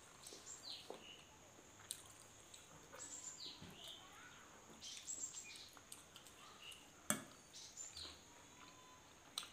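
Quiet eating of steamed momos: faint mouth and chewing noises with a few sharp clicks, over a thin steady high whine and scattered faint chirps.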